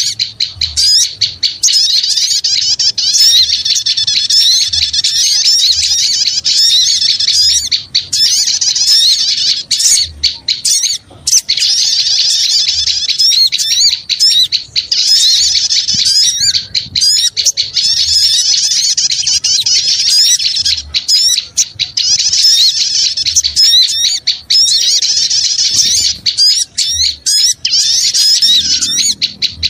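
Loud, unbroken chatter of many small birds, with rapid, overlapping high chirps: a lure (pikat) recording for attracting small birds.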